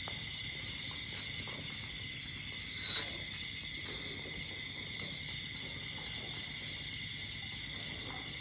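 Steady night ambience: a constant, high-pitched drone of insects, with one faint click about three seconds in.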